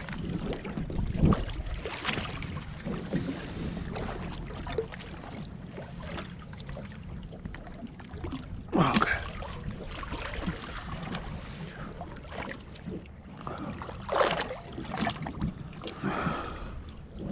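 Water lapping and slapping against a small boat's fibreglass hull, with wind buffeting the microphone. A few louder sudden splashing knocks stand out: about a second in, around the middle and again near the end.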